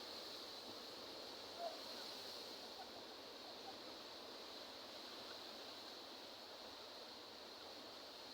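Faint, steady wash of sea waves on the shore, with a brief soft blip about a second and a half in.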